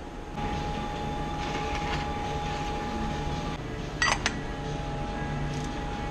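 Steady mechanical hum with a faint constant tone, broken about four seconds in by two quick sharp metallic clinks as a socket wrench and extension are seated on the oil filter housing cap.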